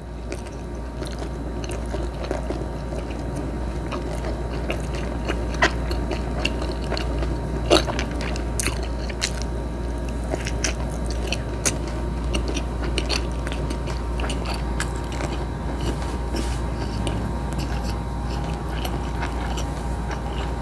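Close-up chewing of grilled pork belly (liempo) and rice, with wet mouth sounds and sharp clicks now and then over a steady low hum.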